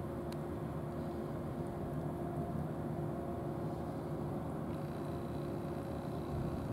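An engine running steadily: an even low hum with a few held tones. A single sharp click about a third of a second in.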